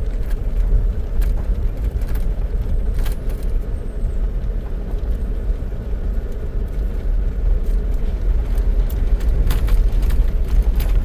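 Car driving, heard from inside the cabin: a steady low rumble of tyres and engine, with scattered light rattles and clicks.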